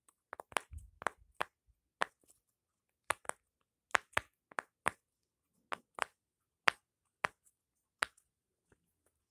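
Sharp, irregular clicks and taps from a small fidget toy being worked by hand, about fifteen in all, thinning out near the end.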